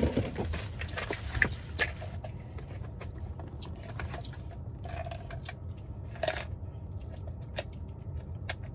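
Scattered light clicks and small handling noises over a steady low hum.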